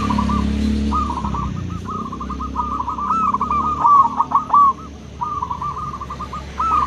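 Zebra dove (perkutut) cooing: phrase after phrase of quick, clipped notes that rise and fall, with short breaks between phrases. A low rumble fades out in the first second or so.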